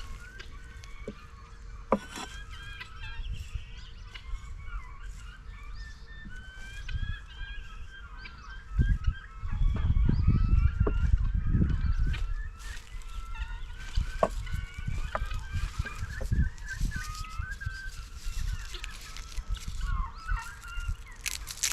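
Guinea fowl calling over and over in short, wavering cries, several birds overlapping. A heavy low rumble is loudest from about nine to twelve seconds in, with a few sharp knocks scattered through.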